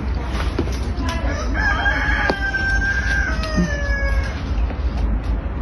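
A rooster crowing once: a long crow with a held note that falls away at the end, over a steady low rumble.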